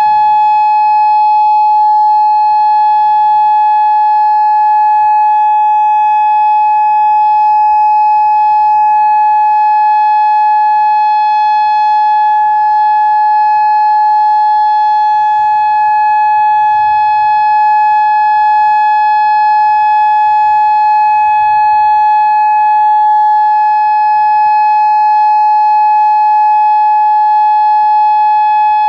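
Federal Signal Modulator II 3012B electronic warning siren sounding its steady alert tone: one loud, unwavering pitch with no rise or fall.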